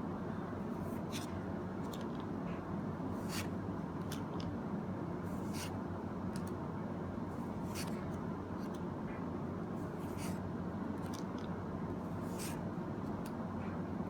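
Trading cards being handled and slid one past another, giving short papery swishes every second or two over a steady low background hum.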